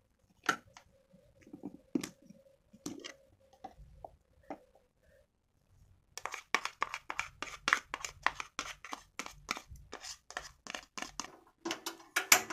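Clear plastic bowl and lid of a small electric food chopper being handled, with a few scattered clicks and knocks. About six seconds in, a dense run of quick scraping, clattering strokes starts as freshly blended chili paste is scraped out of the bowl.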